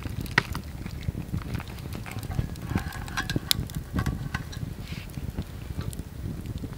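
A paper drip-coffee filter bag being unfolded and hooked onto the rim of a metal mug: crinkling paper and light clicks of handling, over a steady low rumble.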